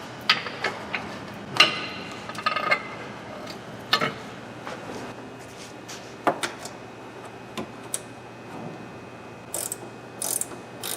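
Loose steel nuts and bolts clinking and clicking as they are handled and set together, with a few short metallic rings between irregular clicks.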